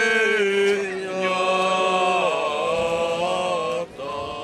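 Men chanting an Orthodox liturgical hymn in Church Slavonic, on long held, slowly gliding notes, with a short pause near the end.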